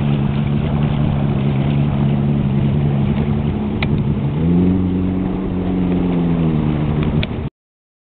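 Bass boat's outboard motor running at low speed, its note rising a step about four seconds in and holding there. The sound cuts off suddenly near the end.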